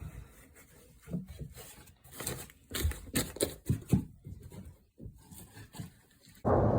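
Irregular scraping and rasping strokes of 5/8-inch drywall being cut and worked by hand. Near the end a loud, steady rushing noise starts suddenly.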